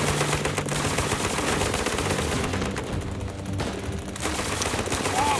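Rapid automatic gunfire, machine guns firing continuously with overlapping shots, easing a little about three seconds in.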